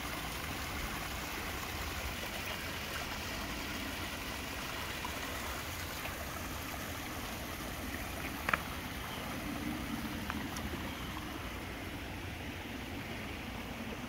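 Small koi-pond waterfall splashing steadily over rocks. A single sharp click comes about eight and a half seconds in.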